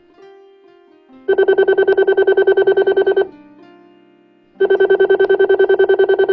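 Cartoon telephone ringing with an electronic trilling ring: two rings of about two seconds each, each a rapid warble of about ten pulses a second. Soft background music notes fill the gaps between the rings.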